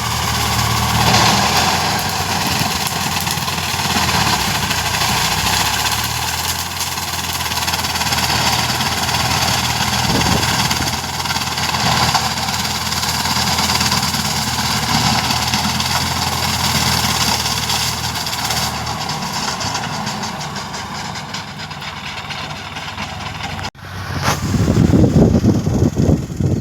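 Swaraj 744 FE tractor's three-cylinder diesel engine running steadily. Near the end the sound cuts sharply to a louder, rougher low rumble.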